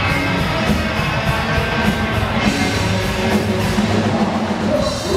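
Live rock band playing an instrumental passage of a country-rock song: distorted electric guitars over a steady drum-kit beat, with a fiddle being bowed.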